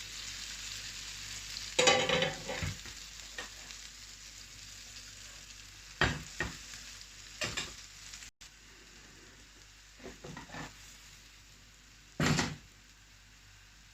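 Egg and vegetable omelette sizzling in oil in a frying pan, the sizzle fading away. A few sharp knocks against the pan come through it, the loudest near the end.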